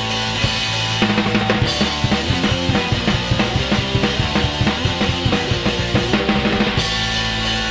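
Punk rock song: a held chord rings for about a second, then the drum kit plays a busy, rapid break of bass drum and snare hits for about six seconds, and the held chord returns near the end.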